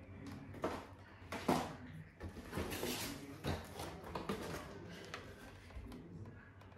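Paperboard firecracker boxes being handled in a cardboard carton: a series of knocks, scrapes and rustles as boxes are lifted out and set down, the sharpest knock about a second and a half in.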